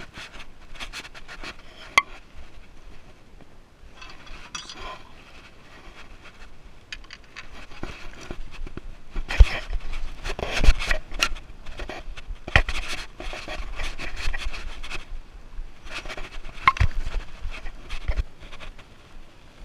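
Close rubbing, scraping and sharp knocking handling noise on a body-worn camera, with scuffing footsteps on jetty rocks, as the angler moves about carrying the landing net. It grows louder and busier about halfway through.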